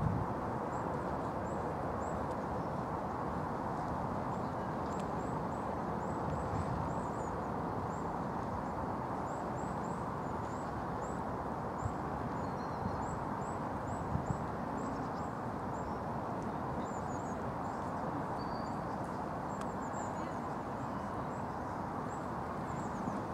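Outdoor ambience: a steady rush of background noise, with small birds chirping high and quick, in runs of chirps through the whole stretch.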